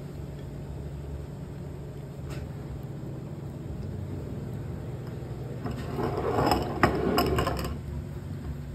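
A steady low hum. About six seconds in, a second or so of clattering and scraping with a sharp clink as a glass bowl of food is handled and a metal spoon works in it.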